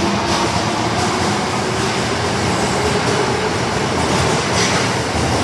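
Osaka Metro Tanimachi Line subway train running through the station, a steady loud rumble of wheels on rail with a few light rail-joint clicks near the end.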